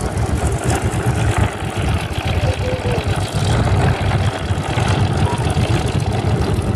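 Grumman F8F Bearcat's Pratt & Whitney R-2800 radial engine running at low power as it taxis, a loud, uneven low pulsing from the propeller and engine.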